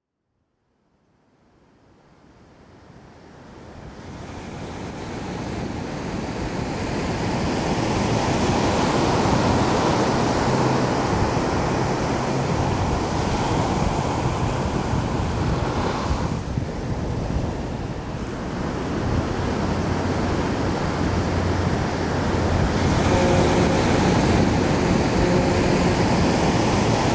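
A steady rushing ambience that fades in over the first several seconds and then holds, with a faint low hum underneath and a few brief, soft tones near the end.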